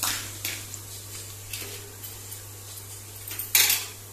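Sliced onions frying in oil in a pressure cooker and stirred with a spoon: short scrapes and sizzles, with one louder burst a little after three and a half seconds.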